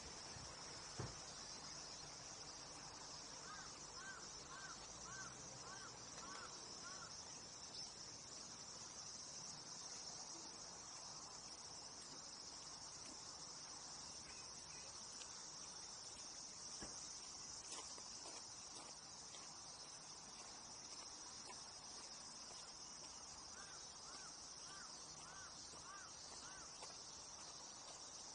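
Steady high-pitched chorus of insects such as crickets, with a bird calling a quick run of about six repeated rising-and-falling notes twice. A single sharp knock about a second in.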